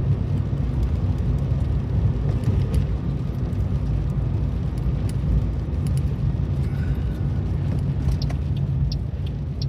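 Steady low rumble of a car driving on a wet road, heard from inside the cabin: engine and tyre noise, with a few faint ticks near the end.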